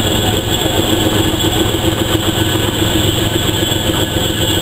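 Steady rumble and hiss of a standing railway locomotive.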